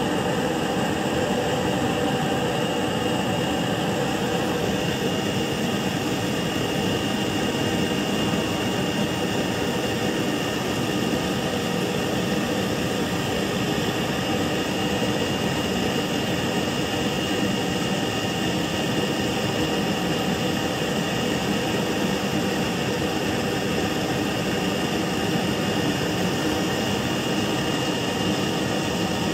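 CNC digital knife cutting machine running as it cuts sound-insulation cotton fibre acoustic panel: a steady machine whir with a thin high whine held throughout.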